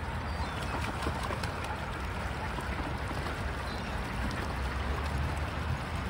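Gulls bathing together in open water, with continuous splashing and lapping water, many small splashes from wings and bodies over a low rumble.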